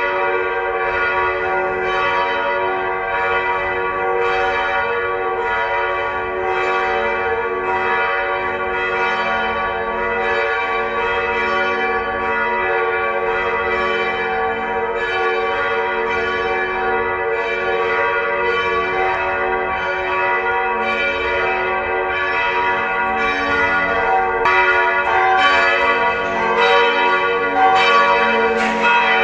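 Church bells pealing continuously, several bells striking in a dense overlapping rhythm with their tones ringing on. The peal grows a little louder in the last few seconds.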